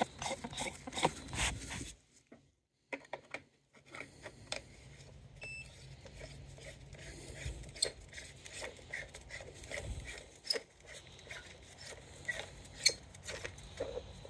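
Handling noise from the hydrogen leak detector's probe wand and rod: scattered clicks, taps and light scrapes. A faint steady low hum runs underneath from about four seconds in, with a brief beep near the middle.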